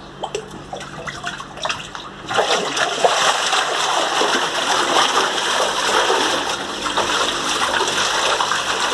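Water in a small fish tank splashing as a wooden-framed mesh net is swept through it and fish thrash in the churned water. A few light splashes and drips at first, then about two seconds in, continuous heavy splashing and churning.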